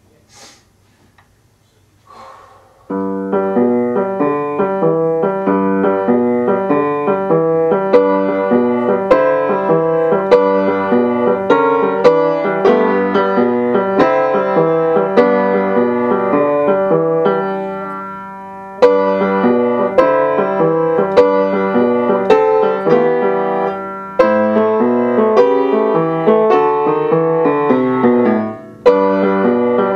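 Upright piano played in boogie-woogie style, with both hands striking a steady stream of notes. The playing starts about three seconds in and breaks off briefly a few times before carrying on.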